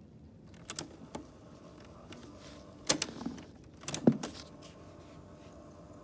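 Piano-key transport buttons on a Citizen JCTR141K double-cassette boombox being pressed and latching: two light clicks about a second in, then louder mechanical clunks about three and about four seconds in as the record and play keys go down together.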